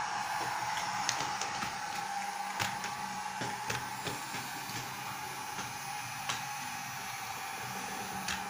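Small electric motor of a battery-powered toy train whirring steadily as the train runs along wooden track, with scattered clicks as the wheels cross the track joints.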